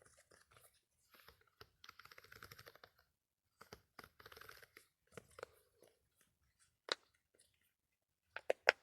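Close-miked handling sounds: two short stretches of soft crinkly crackling, then scattered sharp clicks, the loudest a quick run of clicks near the end.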